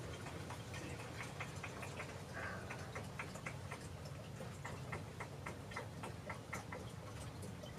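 Light clicking in short runs, several sharp clicks a few tenths of a second apart, over a faint steady background.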